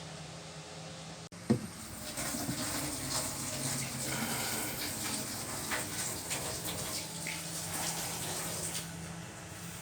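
Water splashing and churning in the wash tub of an old twin-tub washing machine over a steady motor hum, beginning just after a sharp knock about a second and a half in and stopping near the end.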